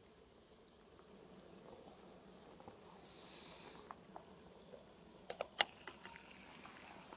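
Aluminium camping kettle's lid lifted with a few quick, light metallic clinks about five seconds in, over a faint steady hiss.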